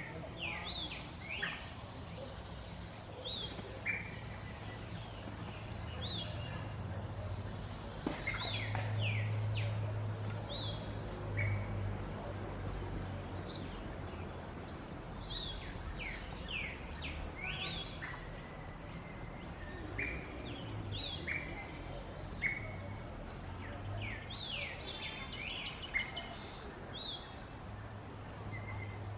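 Small songbirds calling with short, sharp chirps that sweep down in pitch, coming in scattered clusters, over a steady high whine and a low background rumble.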